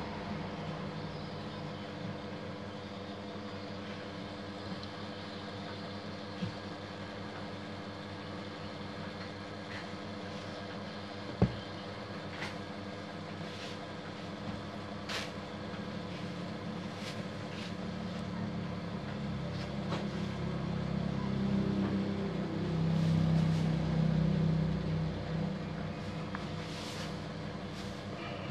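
Small clicks and taps of plastic parts being handled as a spacer roller (collar) is fitted on the shaft end of a Konica Minolta Bizhub copier unit, over a steady background hum; one sharp click stands out a little before halfway. A low rumble swells and fades in the last third.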